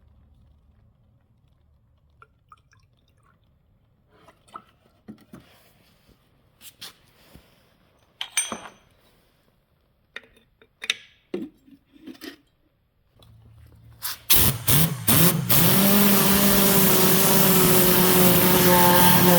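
Scattered clicks and knocks, then a 1992 Fiat Croma's engine is started. A low hum comes on, the starter cranks briefly, and the engine catches about fifteen seconds in and keeps running steadily.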